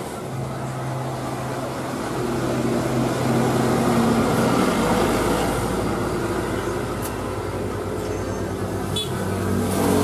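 A truck's engine running as it drives past close by, growing louder over the first few seconds. Another vehicle comes up loud near the end.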